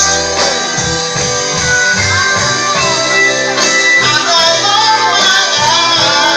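Dance music played loud over a sound system: a steady bass line and guitar, with a singing voice over them.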